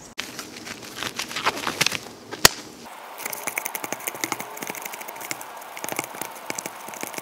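A stirring stick scraping and ticking irregularly against the inside of a plastic mixing cup as epoxy resin is mixed, with one sharp click about two and a half seconds in.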